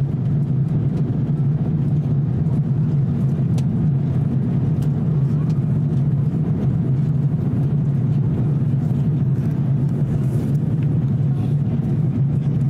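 Steady cabin drone inside an Airbus A350-900 in flight: engine and airflow noise with a strong low hum, unchanging throughout.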